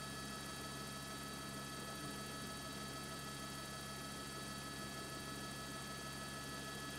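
Steady electrical hum with several thin, unchanging high tones; no distinct aircraft engine is heard.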